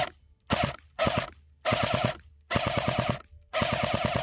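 Barra 400E battery-powered full-auto BB rifle firing about six short bursts in quick succession. Each burst is a rapid string of shots at roughly eight a second, and the bursts grow longer toward the end.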